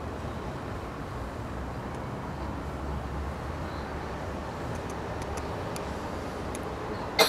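Steady background hiss with a low rumble underneath. Faint ticks come in the second half, and one sharp click sounds just before the end.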